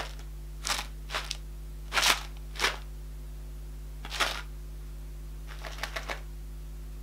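Christmas Cookie Granola with cookie and chocolate stars shifting inside a sealed muesli pot as it is tilted and turned, in several short dry rustles at uneven gaps.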